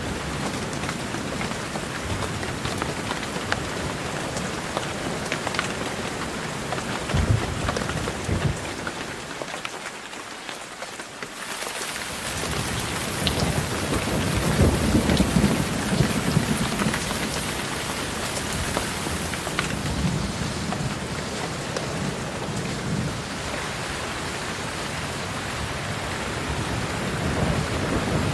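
Steady rain with low rolling thunder, the rumbles swelling about seven seconds in and again from about fourteen seconds in; the rain briefly thins just before the halfway point.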